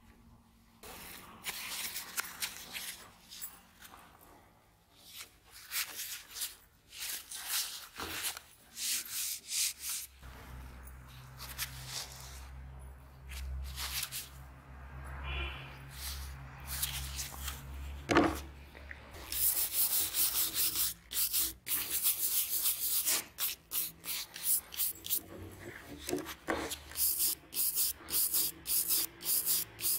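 A rusty steel axe head is handled and scraped on a wooden worktable. In the second half, a hand wire brush scrubs at it in quick, scratchy strokes, about two a second, brushing off the rust. A low steady hum runs through the middle, with a single knock just before the brushing starts.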